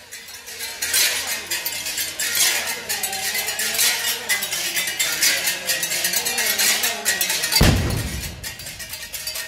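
Metal percussion clinking rhythmically, like bells or cowbells, with voices in the background and a loud low thump near the end.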